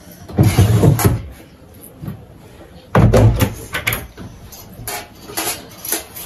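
Forks and spoons clinking and scraping on steel plates during a meal. There are two louder, longer noises, one about half a second in and one about three seconds in.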